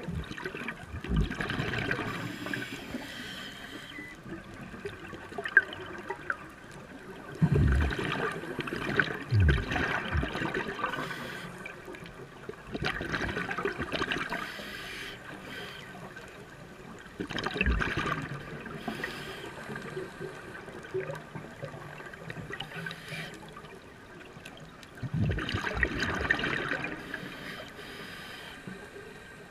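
Scuba regulator exhaust bubbles heard underwater: bursts of bubbling every few seconds as the diver breathes out, with quieter water hiss in between.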